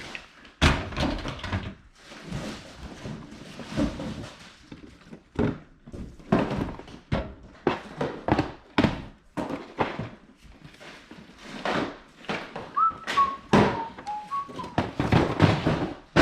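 Boxed toys and cardboard-boxed board games being handled and tossed onto piles: a rapid, irregular string of dull thunks and cardboard knocks. About two-thirds of the way through come a few brief high whistle-like notes.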